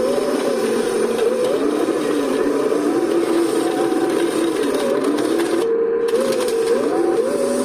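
Electric motors and gearboxes of RC construction models whining, their pitch gliding up and down as the motors speed up and slow down.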